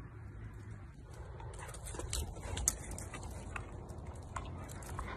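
A running borzoi's paws tapping and clicking unevenly on the ground, over a low steady rumble.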